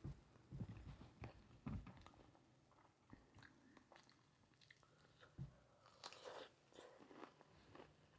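Faint, close-up chewing of a mouthful of food, with irregular small clicks and soft low thumps of the jaw and a slightly longer wet patch about six seconds in.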